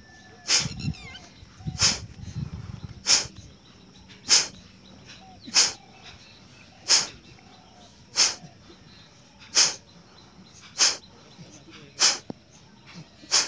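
Kapalbhati pranayama breathing: short, forceful puffs of breath driven out through the nose, at an even pace of about one every 1.3 seconds.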